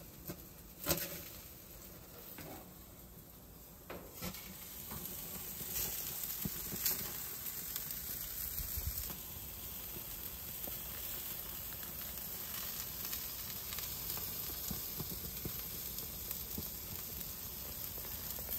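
Chicken thighs and a ribeye steak sizzling on a grill, a steady hiss that grows louder about four seconds in, with a sharp click about a second in and a couple more later.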